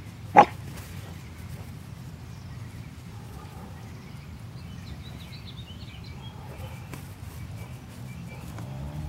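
One short, sharp yip about half a second in, over steady low outdoor background noise with faint high chirps around the middle.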